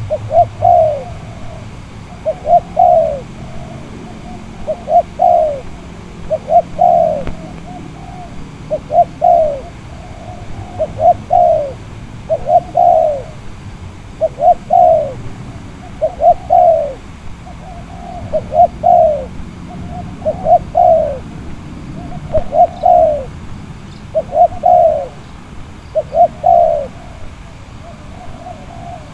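Spotted dove (tekukur) cooing, the same short phrase of falling notes repeated about every two seconds.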